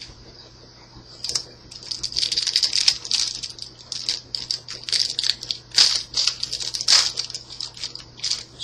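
Foil trading-card booster pack being torn open and the cards inside handled and flicked through: a dense run of crinkling and sharp clicks that starts about a second in.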